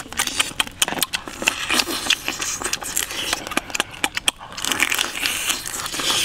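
Wet sucking and slurping of cooked crab meat and roe from the shell, with many sharp crackles and clicks of shell and mouth throughout.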